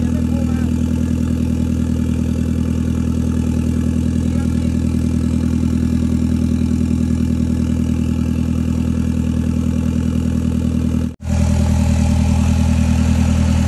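Vehicle engine idling steadily, cutting out for an instant about eleven seconds in.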